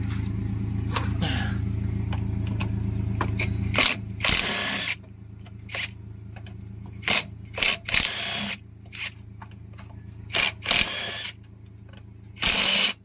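A small mini-truck engine idling steadily, which cuts out about four seconds in. Several short bursts of hiss follow, each under a second long.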